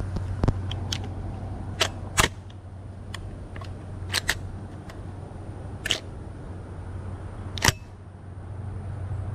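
Sharp metallic clicks of shells being pushed into a Yildiz 12-gauge semi-automatic shotgun's action and magazine, about seven in all, the loudest near the end, over a steady low hum.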